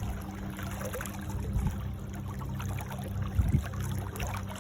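Water trickling and lapping around a fishing boat over a steady low hum, with a couple of soft knocks about three and a half seconds in.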